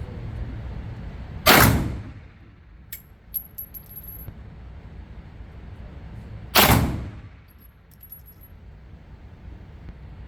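Two 9mm pistol shots about five seconds apart, each echoing off the walls of an indoor range, each followed by a few light metallic clinks of spent brass casings landing.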